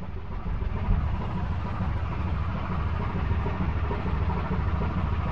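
Low rumbling noise of wind buffeting the microphone on the deck of a ship at sea, getting a little louder about half a second in.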